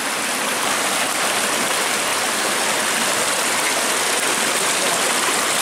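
Small headwater stream running over rocks close by: a steady rush of flowing water.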